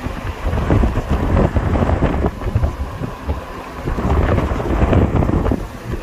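Wind buffeting the microphone: a loud, irregular low rumble with crackle that swells and eases in gusts, strongest in two spells near the start and towards the end.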